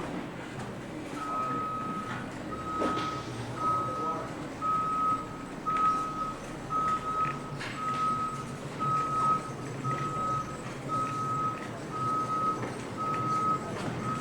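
A vehicle's reversing alarm beeping steadily, about once a second at one pitch, starting about a second in, over the low running of an engine or machinery, with a few scattered knocks.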